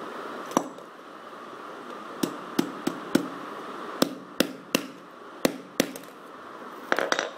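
Steel claw hammer striking an LG Dynamite phone held against a tile floor: about ten sharp blows in quick runs, then a short clatter near the end.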